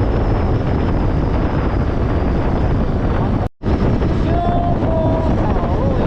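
Heavy wind rushing over the microphone while riding a motorcycle on the open road, with the road and engine noise underneath. The sound cuts out for an instant about halfway through.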